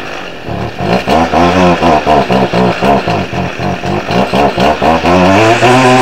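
Stihl FS 38 two-stroke string trimmer engine running on raw, undistilled styrofoam pyrolysis oil with no two-stroke oil mixed in. It runs roughly, with an uneven pulsing about five times a second, then goes steadier and higher in pitch near the end as it revs up.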